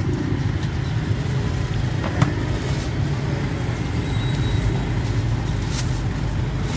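Steady low rumble of road traffic, with a single sharp click about two seconds in.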